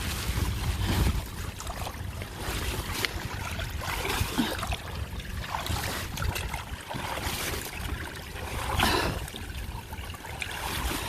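Floodwater running through a yard drain that has just been cleared of a clog, with a brief louder patch about nine seconds in.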